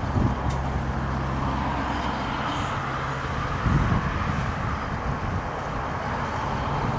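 Narrow-gauge steam train pulling away from the platform: a steady low rumble, with a low hum through the first few seconds.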